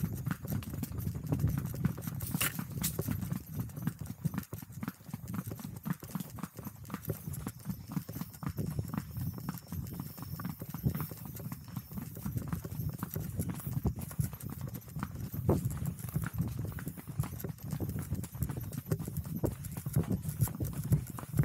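Horse's hooves clip-clopping steadily on a paved road as it is ridden.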